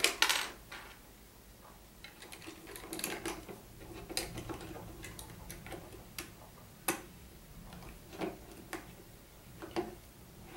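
Small plastic Lego pieces clicking and tapping as they are handled and pressed together, with a cluster of louder clicks at the start, then scattered single clicks and light rattling.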